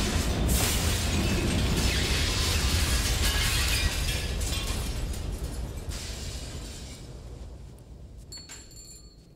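Loud crashing of bursting fixtures and shattering window glass over a dramatic music score. The din is heaviest for the first few seconds, then fades away.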